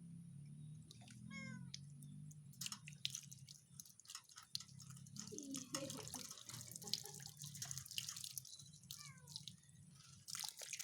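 A wet cat meowing a few times while it is bathed, over water splashing and dripping.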